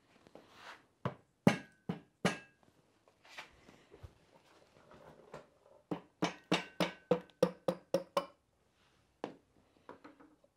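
Hammer blows on a Porsche 356 transaxle's aluminium case, tapping the RTV-sealed nose cone loose. A few spaced strikes come first, then a quick run of about ten at roughly four a second, some with a short metallic ring, then a couple more.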